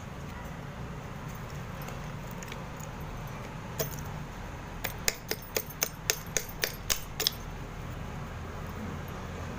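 A metal blade chipping and snapping thin layers off a dry slab of Multani mitti (fuller's earth): one crisp crack about four seconds in, then a quick run of about ten sharp cracks, roughly four a second, over a low steady hum.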